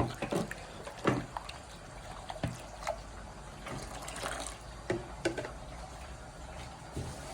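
Warm water being poured into a mixing bowl of dough ingredients, trickling, with a few short knocks and clinks of the container and bowl.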